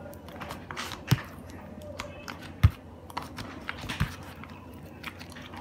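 Light scattered clicks and taps of small bottles, caps and a plate being handled on a tabletop, with three louder knocks about one, two and a half and four seconds in, the middle one the loudest.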